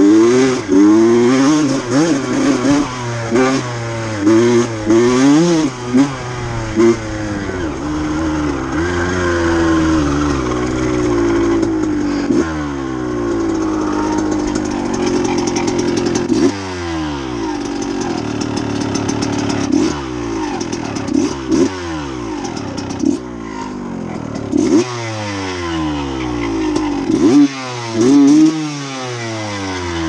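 KTM dirt bike engine revving hard under throttle, its pitch climbing and dropping again and again. In the second half the rises come quicker and steeper from low revs, like a series of hard throttle blips. The bike is being tested on freshly changed carburettor jets.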